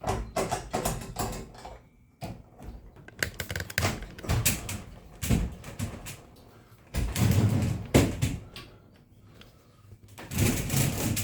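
Irregular knocks, clicks and rattles of metal parts and hand tools being handled.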